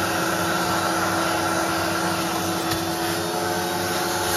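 Ultra Steam carpet and upholstery cleaning machine running: a steady drone of its vacuum motors with a steady whine, while the cleaning wand is worked over a car floor mat.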